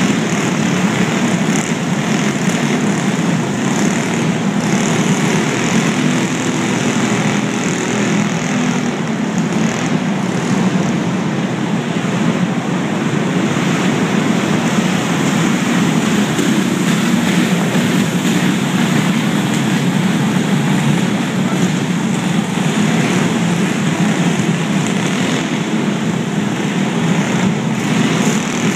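Several small go-kart engines buzzing together in a steady drone as the karts lap a dirt track, rising and falling slightly as they pass, heard inside a large indoor arena.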